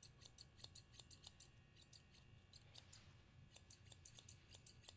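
8-inch Kenchi curved grooming shears snipping through a small dog's coat: faint, quick, even snips about three to four a second, with a short pause about halfway through.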